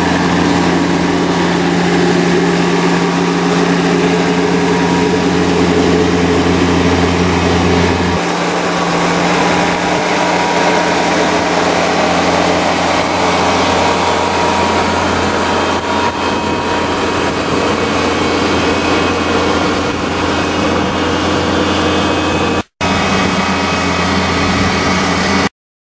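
New Holland tractor engine running steadily under load, pulling a mounted in-row weeder through the crop. Its note changes abruptly about eight seconds in, drops out for a moment near the end, then cuts off suddenly.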